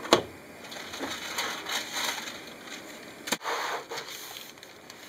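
A plastic-packaged phone, banknotes and a paper receipt being handled and slid across a shop counter: rubbing and rustling, with a sharp knock right at the start and another a little over three seconds in.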